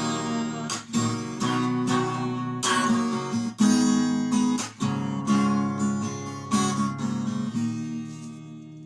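Acoustic guitar strumming chords with no voice, closing the song; the last chord rings and fades away near the end.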